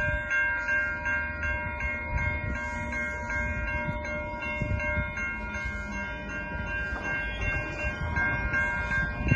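Railroad crossing warning bell ringing steadily, about three strokes a second, over a low rumble, as it signals an approaching train.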